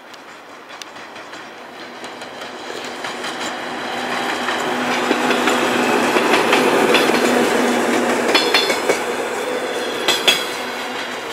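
TEP70 diesel passenger locomotive pulling a suburban train away from the station, growing louder as it approaches and passes with a steady engine drone. Passenger coaches then roll by, their wheels clicking over rail joints, sharpest in the last few seconds.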